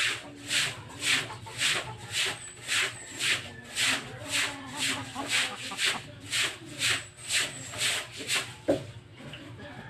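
Long-handled brush scrubbing a wet concrete floor in steady back-and-forth strokes, about two a second. The strokes stop near the end, followed by a single light knock.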